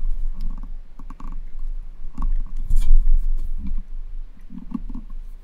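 Irregular clicking with low thumps.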